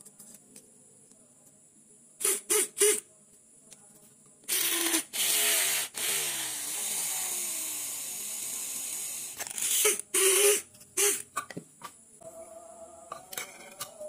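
Homemade drill built from a 775 DC motor, switched on in three quick bursts, then run as its bit bores into a thin sheet, its pitch wavering as the bit bites. Near the end it runs more steadily.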